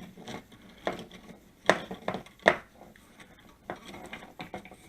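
Sharp clicks and light knocks of electrical wires and plastic wire nuts being handled and bunched together while being wrapped with electrical tape, two louder clicks near the middle.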